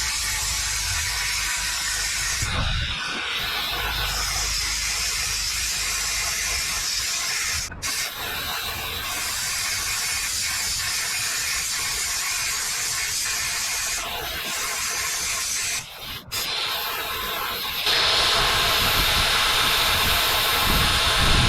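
Plasma cutter cutting steel plate: a steady, loud hiss of the air arc, broken by two short breaks, and louder and brighter near the end.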